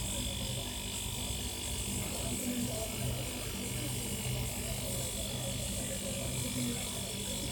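Salvaged refrigerator compressor running with a steady electric hum.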